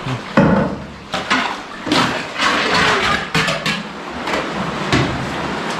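Seawater sloshing and washing against the rock walls of a narrow sea cave around a canoe, with irregular knocks and scrapes as paddles and hull touch the rock.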